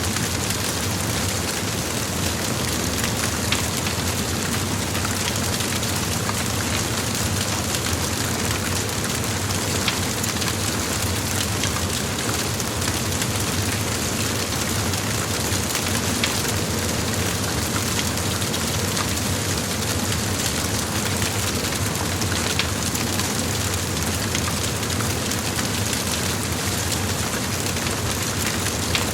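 A large fire blazing: a steady rushing noise with scattered crackles and pops.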